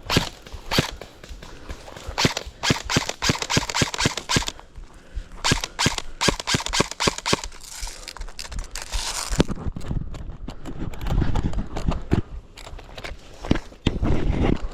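Airsoft gun firing two rapid strings of sharp shots, each a couple of seconds long, followed by low rumbling noise near the end.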